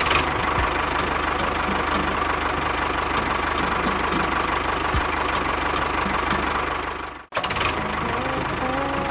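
Small electric motor and gears of a DIY mini tractor model running steadily, a mechanical whir with a fast regular clicking. It cuts out abruptly about seven seconds in and resumes straight away.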